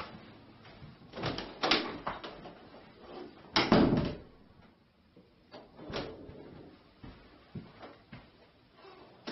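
Interior door and its latch: a series of knocks and latch clicks, loudest about three and a half seconds in, with a few softer clicks after.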